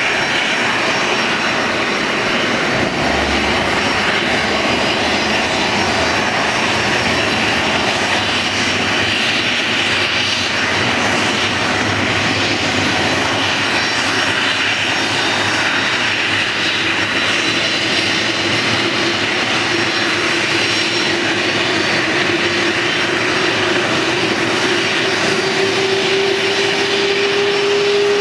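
Boeing 737-300's CFM56 turbofan engines running with a steady loud rush. In the second half a whine rises slowly in pitch.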